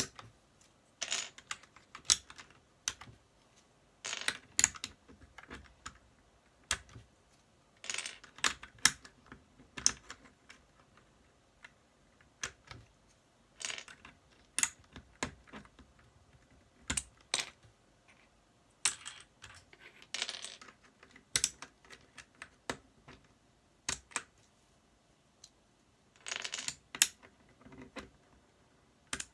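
Ajazz mechanical keyboard clacking: irregular sharp plastic clicks from its keys and keycaps, singly and in short clusters with brief pauses between.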